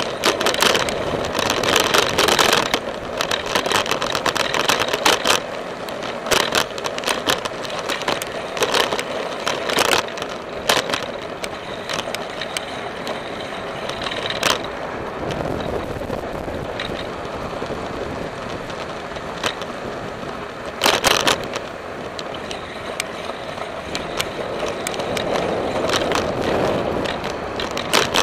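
Bicycle rolling along an asphalt path: a steady rush of tyre and wind noise with frequent clicks and rattles over bumps, loudest a couple of seconds in and again about 21 seconds in.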